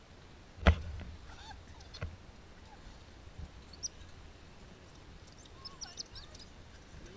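Coatis chirping and squeaking faintly in short high calls. A sharp knock comes about two-thirds of a second in, the loudest sound, with a lighter one about two seconds in.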